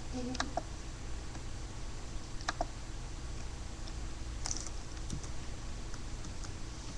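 A few scattered clicks of a computer keyboard and mouse, in ones and small clusters, over a steady low hum.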